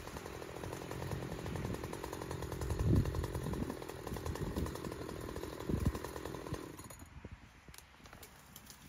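An engine running steadily with a rapid pulsing note and a couple of dull thumps, then stopping about seven seconds in.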